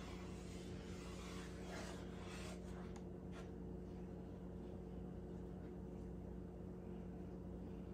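Faint scraping of a spoon stirring stew in a pot, a few soft strokes in the first half, over a steady low hum.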